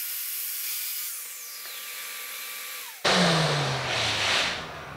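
Festool TS55 FEQ track saw running with its blade spinning, then winding down in a falling whine over about two seconds after the cut. About three seconds in this gives way abruptly to louder scraping and rubbing as a plywood panel is slid across the worktable.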